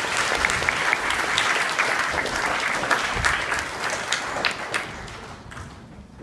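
Audience of schoolchildren clapping, the applause dying away over the last second or so.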